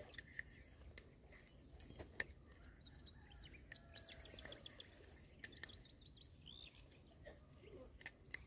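Near silence with faint bird chirps, including a short run of quick repeated high notes about four seconds in, and a few faint clicks scattered through.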